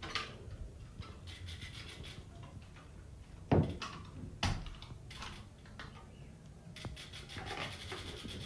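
Handling and scraping noises as flattened aluminium cans are worked into a bicycle's rear wheel. There are two sharp knocks, about three and a half and four and a half seconds in, and spells of fast, even ticking.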